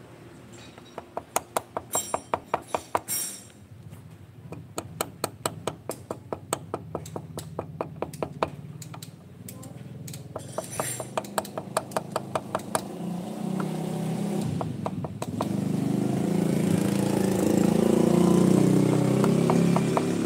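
Clicking of a two-stroke motorcycle engine's connecting rod as it is rocked by hand on the crankshaft, metal knocking on metal in runs of about four clicks a second. The play is the sign of a rod that the mechanic judges worn at the edges but still usable. From about two-thirds through, an engine hum swells up behind it.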